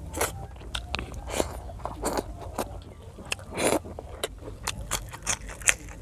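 Close-miked mouth sounds of a person eating pork liver igado and rice by hand: chewing and lip smacks, heard as many irregular short clicks with a few louder smacks.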